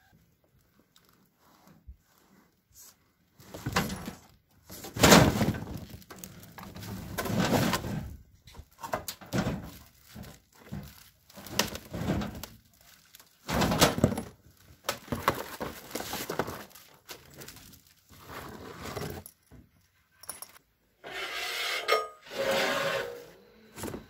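Irregular knocking, clatter and rustling as a portable sawmill head and its parts are unpacked: metal parts bumping and cardboard and plastic wrapping being handled, in stop-start bursts.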